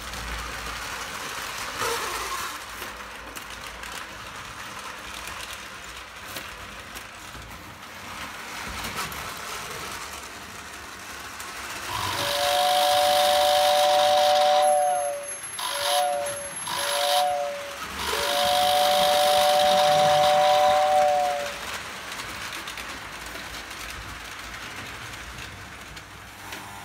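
Two-tone toy train whistle of a Lionel O gauge train, blown as a long blast, two short toots and another long blast, over the steady running noise of toy trains on the track.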